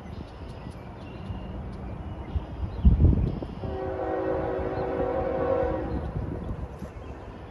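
Horn of a distant, approaching CSX ES44AH locomotive: one long blast of several tones together, starting about halfway through and held for about two and a half seconds. A low thump a little before the horn.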